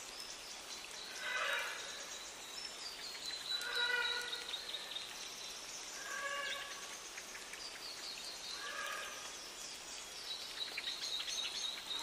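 A bird chorus of native New Zealand songbirds, with South Island robins, grey warbler and bellbird among them, sings continuously at a high pitch, including long, slowly falling trills. Below it a lower call with a clear pitched ring sounds four times, about every two and a half seconds.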